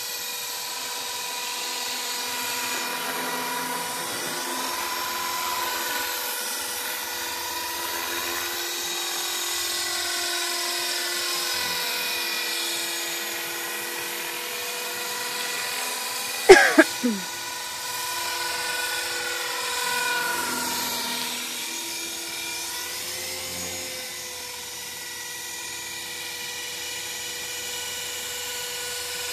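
HK 450 Pro TT electric RC helicopter flying overhead: the high whine of its motor and gears, with its pitch bending up and down as it moves about. About halfway through there is one brief, sharp, loud sound whose pitch drops quickly.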